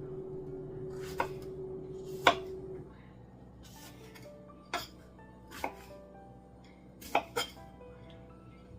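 About seven sharp knocks at irregular intervals, a knife striking a cutting board as fruit is cut, over soft acoustic guitar background music that drops in level about three seconds in.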